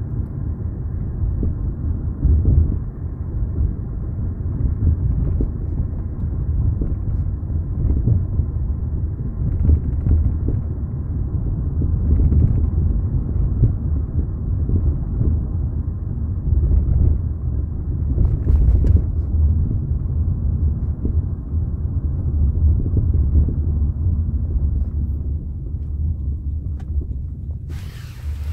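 Inside the cabin of a 1998 Toyota Camry while it is driven: a steady low road rumble with irregular knocks and clunks, which the owner blames on faulty, newly installed aftermarket struts. A short hiss comes right at the end.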